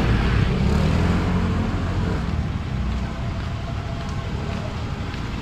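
A motor vehicle's engine running close by over street noise, loud at first and fading after about two seconds as it moves off.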